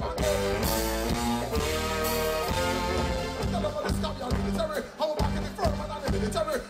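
Live reggae music: a male vocalist singing into a microphone over a backing band with a steady bass line, with long held notes in the first three seconds.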